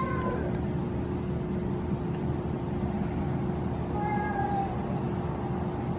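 A toddler's short, high calls coming through a baby monitor's small speaker: one right at the start and another about four seconds in, as she asks for the door to be left open. They sit over the monitor's steady hiss and hum.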